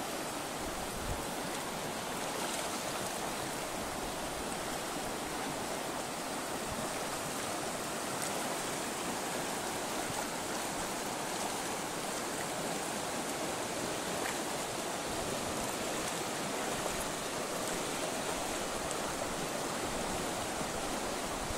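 Fast mountain river current rushing over riffles and rocks, a steady even rush of water.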